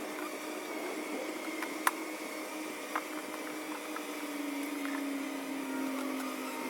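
Honeybees buzzing in a steady hum, one tone sliding slightly lower partway through, with two sharp clicks about two and three seconds in.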